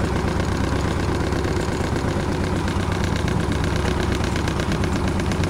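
Westerly Centaur's inboard diesel engine running steadily at low revs, with a fast, even beat.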